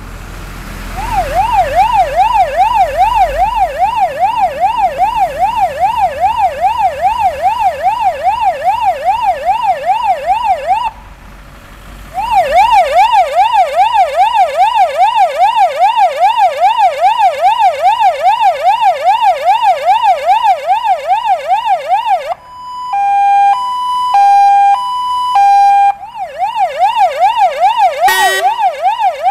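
Fire engine siren from a GES 110 signal generator through its two YD 100B loudspeakers. It sweeps rapidly up and down about three times a second, stops briefly about eleven seconds in, and starts again. About 22 seconds in it switches to a two-tone hi-lo pattern, goes back to the sweep for a moment, and gives a short rising blip near the end.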